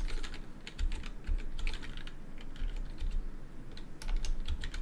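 Computer keyboard being typed on: keystrokes clicking in short, irregular runs.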